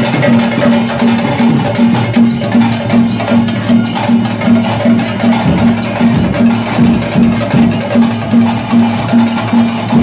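Percussion-led music with a steady, quick beat of about two to three strokes a second.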